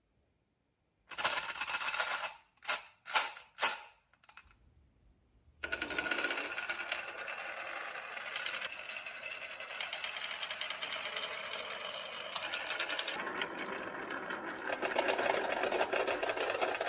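Marbles clattering on a wooden marble run: a loud clatter about a second in, three sharp knocks, then after a short pause a steady rolling rattle of marbles on the wooden track.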